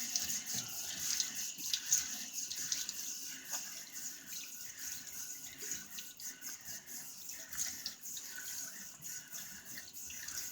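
Razor strokes scraping through lathered stubble: a half Wizamet blade in a Firm Blade razor, making many short, irregular scratchy passes.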